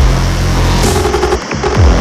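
Electronic music with heavy bass. A deep bass note slides down in pitch at the start and again near the end, with a held low bass tone and a few short synth notes in between.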